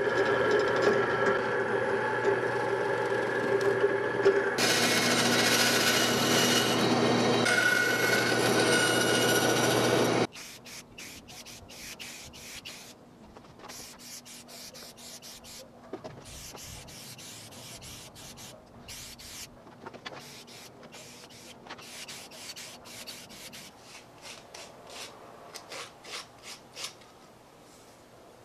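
Drill press motor running steadily, its 3/8-inch bit cutting holes in a thin wood strip from about four and a half seconds in. At about ten seconds it stops, and quieter, irregular rubbing strokes follow as black paint is wiped onto a wooden frame.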